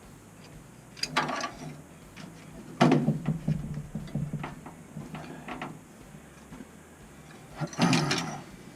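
Hand work on metal boiler parts and tools: several short bursts of clattering and knocking, loudest about three seconds in and again near the end.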